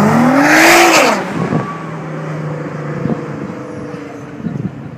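Tuned Nissan GT-R R35 (about 650 hp), its twin-turbo V6 accelerating hard away from the spot. The engine note climbs in pitch to a loud peak about a second in, then falls and runs on lower, fading as the car pulls away.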